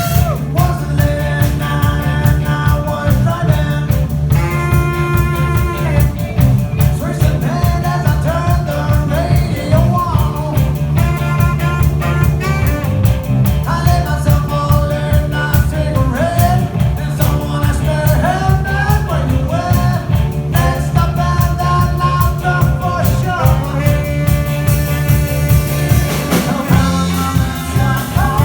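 A live band playing a song: a lead melody line over a steady bass line and drums.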